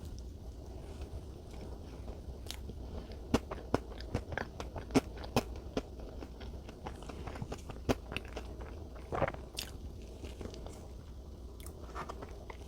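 Close-miked chewing of Godiva salted caramel chocolate cake, with a scatter of short, sharp mouth clicks, thickest in the first half.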